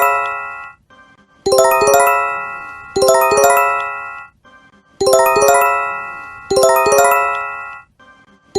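Japanese emergency alert chime (J-Alert): a quick run of bell-like electronic tones that ring out and fade, repeated in pairs with short pauses between each pair.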